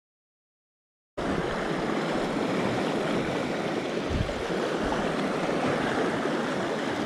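Silence for about the first second, then the steady rush of the Madison River's flowing water, with a brief low thump about four seconds in.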